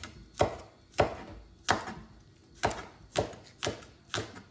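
Kitchen knife chopping green onion on a cutting board: about seven separate, unevenly spaced strikes, each a sharp knock against the board.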